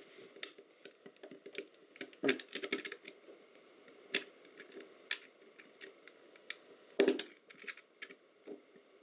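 Small pliers picking and crunching away hardened yellow potting compound from an electronic module, making irregular clicks, snaps and crackles, with the sharpest crack about seven seconds in.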